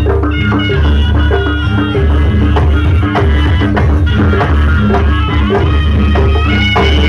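Loud live jaranan music: a drum-driven ensemble with short repeated pitched notes over heavy bass, played at a steady beat.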